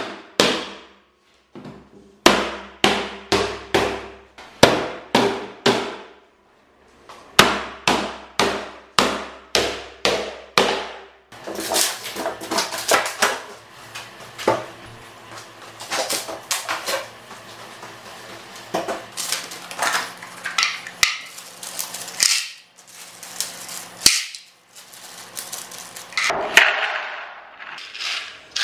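Hammer blows on a wooden shipping crate, in runs of about two strikes a second, each ringing briefly. About ten seconds in they give way to quicker, irregular knocks and clatter as the crate is pulled apart.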